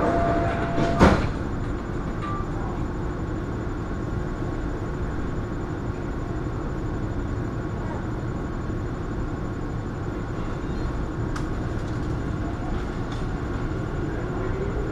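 Inside a moving metro train car: the steady rumble of the train running on its track, with one sharp knock about a second in and a motor whine rising slowly in pitch near the end.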